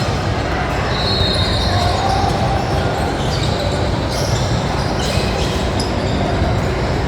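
Basketball game in a gymnasium: a ball bouncing on the hardwood court with players moving and spectators talking in a steady, echoing din.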